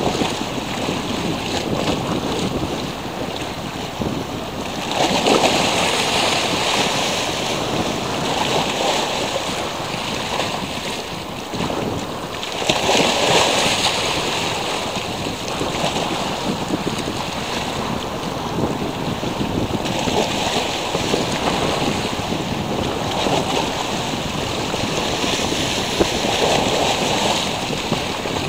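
Small sea waves washing onto a beach, swelling and falling back in surges every few seconds, with wind rumbling on the microphone.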